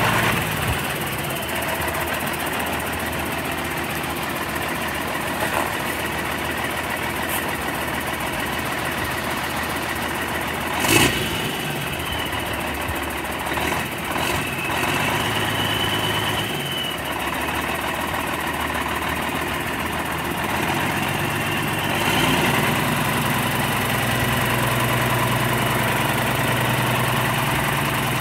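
2001 Peterbilt 378 semi tractor's diesel engine running steadily as the truck drives slowly around a lot, with one sharp short sound about a third of the way in. The engine note grows louder about three quarters of the way through.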